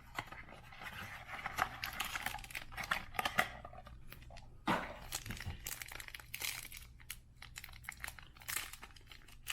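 Crinkling and tearing of a trading-card pack wrapper as it is handled and ripped open, with irregular crackly rustling and sharp clicks throughout.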